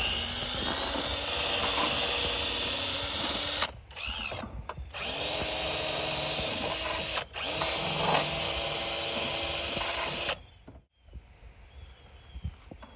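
Power drill running in three bursts, the motor winding up at the start of each, stopping about ten seconds in.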